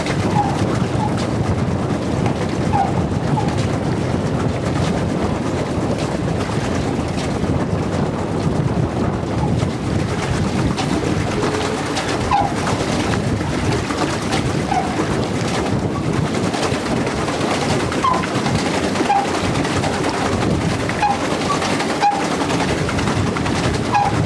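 Steady low rushing noise of a small boat moving along a lake, with short, high chirps now and then, like birds calling.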